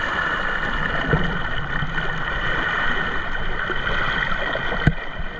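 Sea water sloshing and splashing around legs wading through shallow, rocky water, with a short sharp knock near the end.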